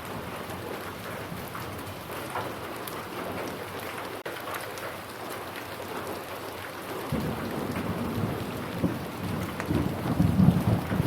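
Steady rain falling, with scattered drops pattering. About seven seconds in, a low rumble of thunder builds and peaks near the end.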